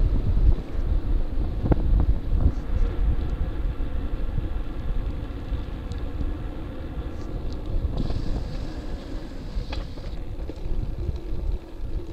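Wind buffeting the microphone of a bicycle-mounted camera while riding, over a low rumble from the tyres on pavement, with a few sharp knocks.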